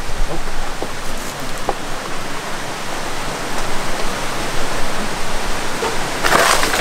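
Steady rushing of a river flowing over rocks, an even wash of water noise. A few faint knocks come early, and a brief louder rustle comes near the end.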